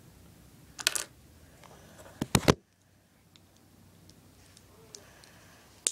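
Sharp plastic clicks and handling knocks as Lego minifigure pieces are fitted together by hand: one click about a second in, a quick cluster of louder clicks about two and a half seconds in, and another click near the end.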